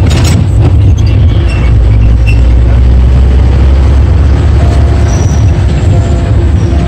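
Loud, steady low rumble of engine and road noise heard from inside a bus driving along a town street.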